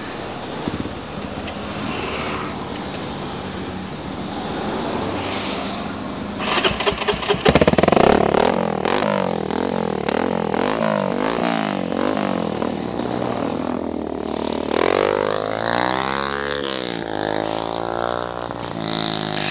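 Dirt bike engine revving, its pitch swinging up and down again and again from about seven seconds in, after a quieter first few seconds; near the end it makes one long slow rise and fall in pitch.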